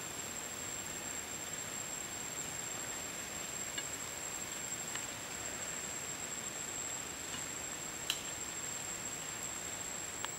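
A pan of seafood in sauce cooking over a wood fire, a steady hiss, with a thin, high, unbroken tone above it. A few faint clicks come from a wooden spatula stirring in the pan, the sharpest about eight seconds in.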